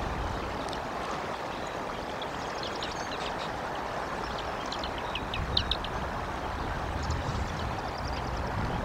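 Steady outdoor rushing noise, wind on an outdoor nest-cam microphone, with short high-pitched bird chirps and quick trills scattered through it.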